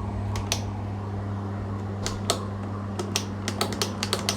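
Steady low electrical hum from elevator equipment, with irregular sharp clicks that come several in quick succession near the end.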